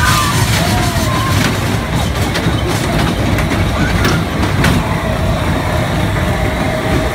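Small dragon-themed kiddie roller coaster train rumbling along its steel track as it passes close by, with faint voices in the background.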